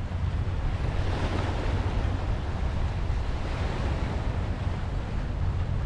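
Small sea waves washing against a rocky shoreline, with wind buffeting the microphone as a steady low rumble.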